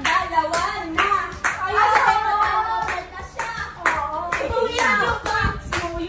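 Group of people clapping in a steady beat, about two claps a second, with voices singing or chanting along.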